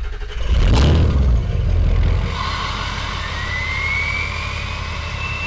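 Truck engine revving: a heavy low rumble, loudest for the first two seconds, then settling into a steadier run as a high whistle climbs slowly in pitch.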